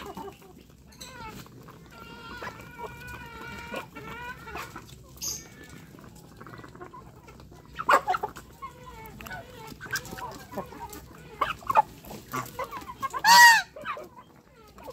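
Chickens clucking while they peck at a rice and poultry-feed mash, with sharp taps of beaks on the ground. One bird holds a call for about two seconds a couple of seconds in, and a single loud call near the end is the loudest sound.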